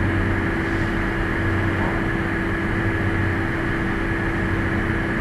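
Steady background hum and hiss, with a low steady tone running through it.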